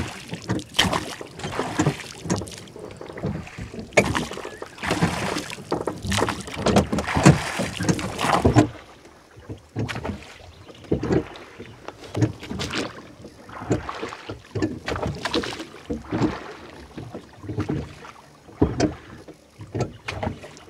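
Rowboat being rowed: a string of uneven splashes and knocks from the oars in the water, turning duller about eight seconds in.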